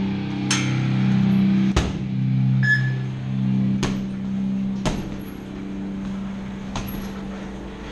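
Kicks and gloved punches landing on a hanging heavy bag: about five sharp thuds at irregular intervals, over a steady low hum.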